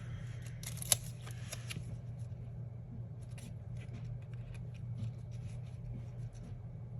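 Sticker sheets and paper being handled: light rustles and small scattered clicks and taps, with one sharper tap about a second in, over a steady low hum.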